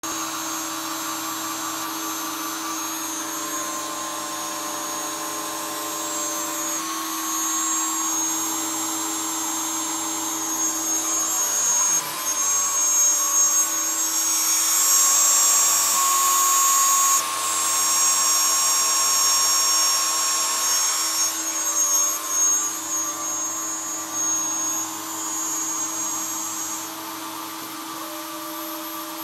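Hobby CNC router cutting with a 2 mm three-flute cutter: a steady motor whine, with several steady tones that step to new pitches every few seconds as the axes move. It is louder for several seconds in the middle.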